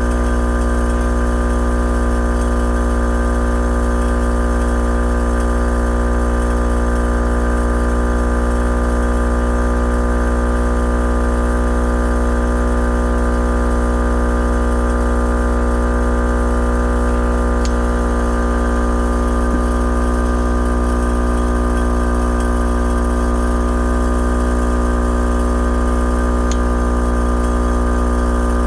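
Air-ride compressor running steadily, filling the air tank of a newly wired AccuAir eLevel air suspension.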